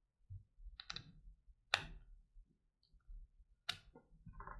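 A few faint, sharp clicks and handling sounds as a USB charging cable plug is fitted into the socket on the bottom of a plush dancing cactus toy.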